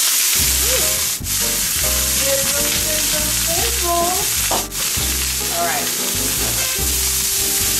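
Chopped broccoli sizzling in a frying pan of hot oil, freshly added: a steady, loud frying hiss.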